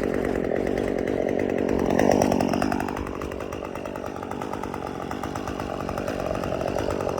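Chainsaw running, revving up about two seconds in, dropping back a little, then picking up again toward the end.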